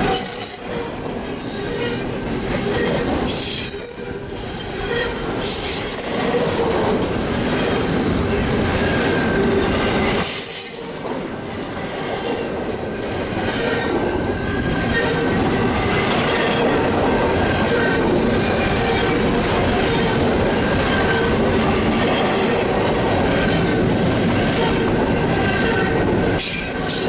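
Union Pacific double-stack intermodal freight train rolling past at speed: a steady rumble and clatter of steel wheels on rail, with a high steady wheel squeal over it. The loudness dips briefly twice, near 4 seconds and near 11 seconds in.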